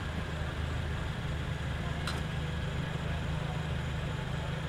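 Scion xB's four-cylinder engine idling close by, a steady low drone. A short sharp click about two seconds in.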